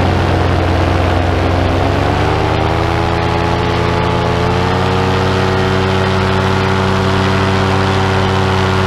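Paramotor engine running in flight; its revs rise smoothly about two seconds in, then hold steady.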